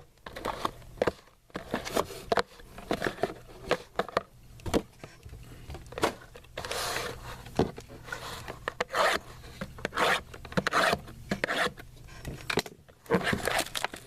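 Trading cards being handled and sorted by hand: irregular rubbing, sliding and scraping, with light taps.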